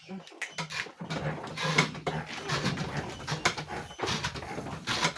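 Goats jostling and shuffling in a pen while they are sprayed: irregular knocks and scuffles over a steady rustling noise, starting about a second in.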